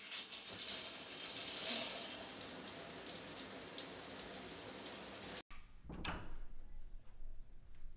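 Shower running: water spraying from a handheld shower head onto tile, a steady hiss that cuts off suddenly about five seconds in. A short thud follows about a second later.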